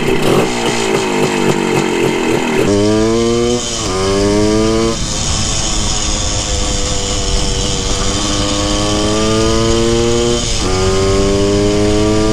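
1974 Honda MT250 Elsinore's single-cylinder two-stroke engine under way and accelerating, its ignition timing now corrected. The sound is rough and uneven for the first couple of seconds. After that the pitch climbs in each gear and drops sharply at three upshifts: about three and a half seconds in, about five seconds in, and near the end after a long pull.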